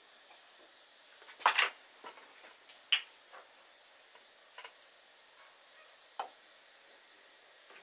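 Small cups, a glass and a bottle clinking and being set down on a wooden table: a handful of separate clinks and knocks, the loudest a short clatter about a second and a half in.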